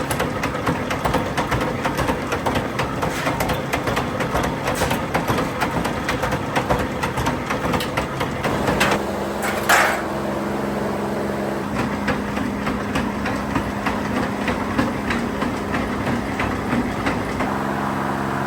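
Workshop machinery running, with rapid metallic clatter and knocks. A short loud burst comes near the middle, after which a steadier machine hum with fewer knocks carries on.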